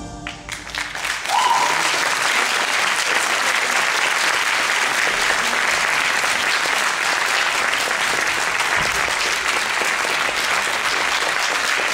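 Theatre audience applauding steadily, the clapping swelling in about a second in as the last of the tango music dies away.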